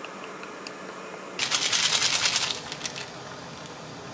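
Plastic and foil food packaging crinkling and rustling for about a second, starting about a second and a half in, as a dense run of crackles.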